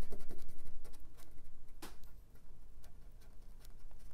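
Cotton swab scrubbing the raised lettering of an Amiga 1200's plastic case: a fast, fine scratching, with one sharper click about two seconds in. The acetone-wetted swab is rubbing leftover chrome paint out of the letters.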